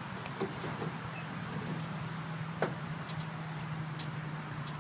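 Steady low hum of a vehicle engine idling, with a few light clicks and one sharper knock about two and a half seconds in as a sheet-covered animal trap is handled in a pickup's bed.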